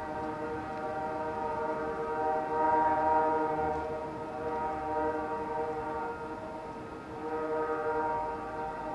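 Distant air horn of a receding Conrail freight train's diesel locomotive, sounding a chord in long, steady blasts that swell louder about three seconds in and again near the end.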